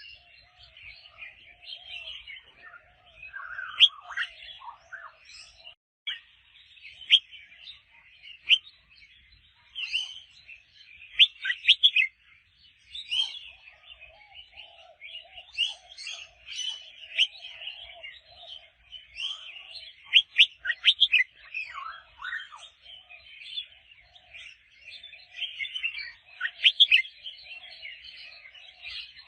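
Red-whiskered bulbul singing: bright, rapid, sweeping whistled phrases repeated over and over, with a fainter low warbling sound running underneath most of the time.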